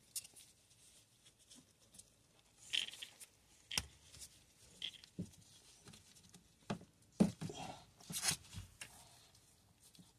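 Hands working on washing machine parts during a leak repair: scattered clicks, light knocks and rustling scrapes at irregular intervals, the sharpest knock a little past seven seconds in.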